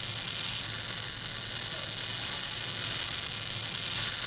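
MIG (gas metal arc) welding with a small portable fume-extraction blower running: a steady hiss with a low hum underneath.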